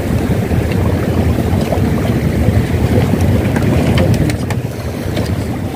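Wind buffeting the microphone in a steady low rumble, over sea water lapping, with a few faint light clicks.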